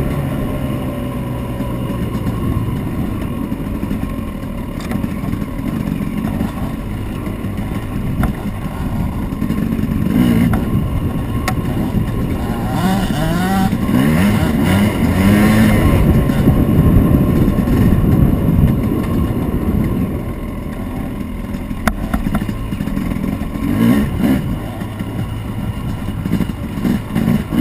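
Dirt bike engine under way on a rough trail, its revs rising and falling as the rider works the throttle, with occasional knocks.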